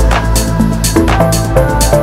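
Background music with a steady beat and a melody over a bass line.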